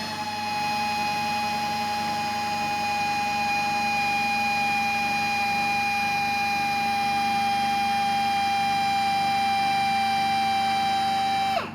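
Air die grinder running flat out with a steady high-pitched whine while grinding a cone onto the tip of an old centre drill. The pitch sags slightly as it cuts, and the grinder winds down near the end.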